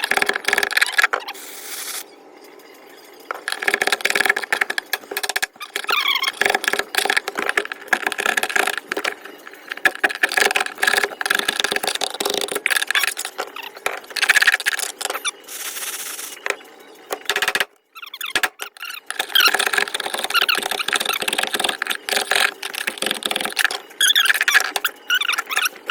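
A scraper blade pushed under old tar-based sound deadening against sheet metal, squealing and scraping in irregular strokes, with brief pauses about two seconds in and again near eighteen seconds.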